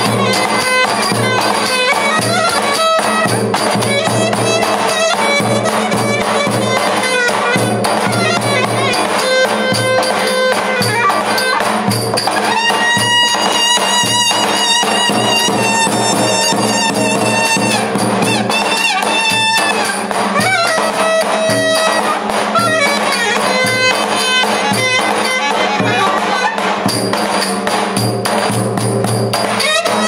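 Live Turkish dance music played on a davul bass drum and a clarinet: a steady, loud drum beat under a reedy, ornamented melody, with the clarinet holding one long high note for several seconds around the middle.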